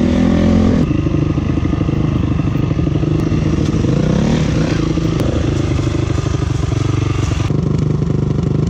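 Dirt bike engine running under way, its pitch rising and falling briefly with the throttle, with abrupt changes in tone about a second in and near the end.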